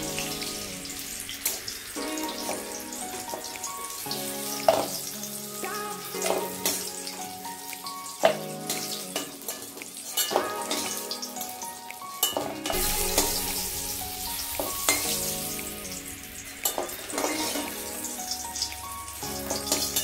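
Hot oil sizzling in an aluminium kadai as fried brinjal pakoras are scooped out with a metal spoon, with scattered clinks and scrapes of the spoon against the pan. A background melody plays throughout.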